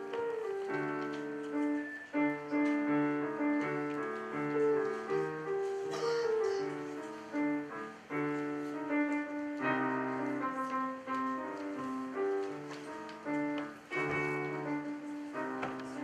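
Piano played solo: a melody in the upper notes over a steady left-hand pattern of repeated low notes, about two a second.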